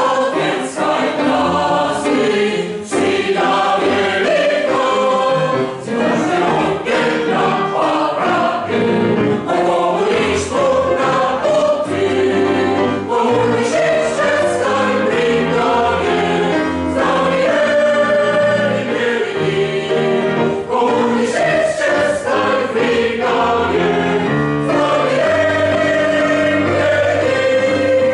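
Mixed choir singing.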